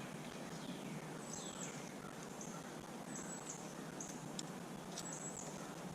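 Faint outdoor background with short, high chirps from wildlife repeating every second or so, one a falling sweep, and a single light click about four seconds in.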